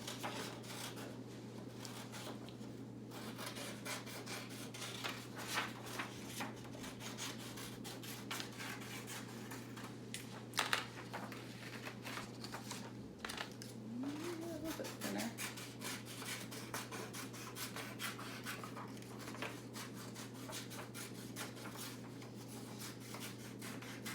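Paper being worked by hand on a table: irregular scratching and rubbing with many small crisp ticks, over a steady low hum.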